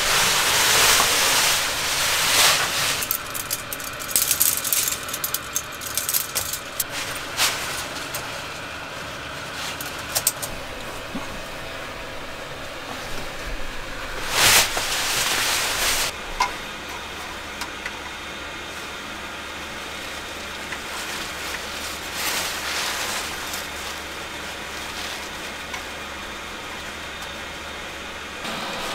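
Fabric rustling and swishing as bedding and gear are handled, loudest near the start and again about halfway, with scattered clicks and knocks, over a steady low hum.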